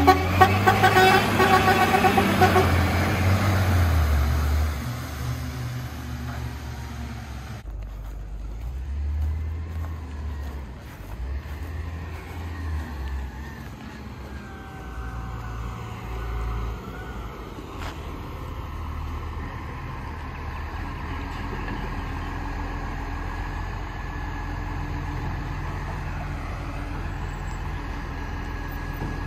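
Diesel garbage truck engine, loud and revving in the first few seconds, then running at a lower, steady idle.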